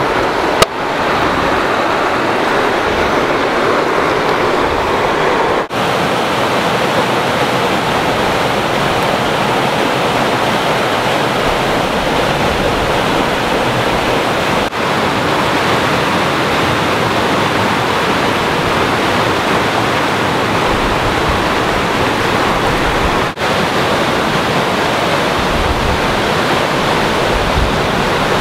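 Steady rushing of a rocky mountain stream running over riffles and small rapids, with one sharp knock about half a second in.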